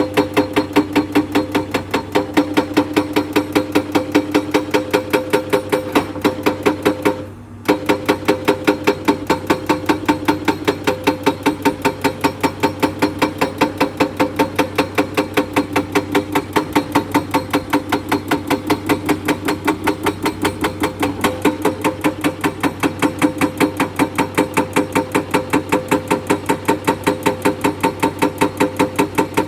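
Excavator-mounted hydraulic rock breaker hammering limestone in a steady, fast rhythm of about three blows a second, over the steady hum of the excavator's engine. All sound drops out for about half a second about seven seconds in.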